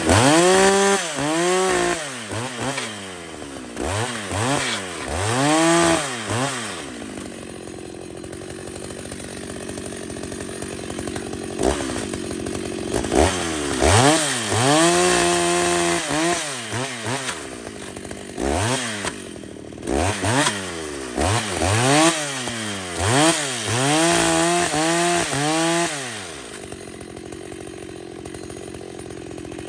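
Gas chainsaw revved in a series of quick throttle blips, its pitch rising and falling each time, with one longer held rev about halfway through. The engine drops back to a lower idle in between and near the end.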